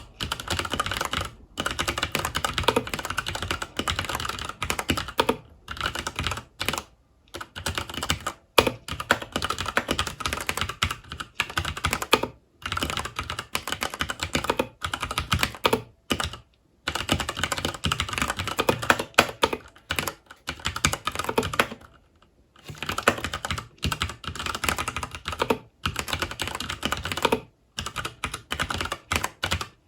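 Continuous fast typing on a FILCO Majestouch 2 Hakua tenkeyless mechanical keyboard with Cherry MX Brown switches: dense runs of keystroke clacks broken by brief pauses every few seconds.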